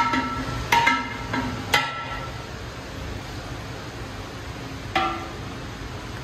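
A long metal skimmer-ladle knocks against the rim of a large hammered aluminium cooking pot while stirring boiling rice. It gives four sharp, ringing clanks in the first two seconds and one more about five seconds in, over the steady low rumble of the gas burners.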